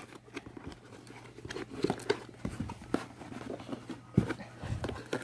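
Packaging being handled and pulled open: scattered crinkles, scrapes and light taps of a sturdy cardboard box and its wrapping.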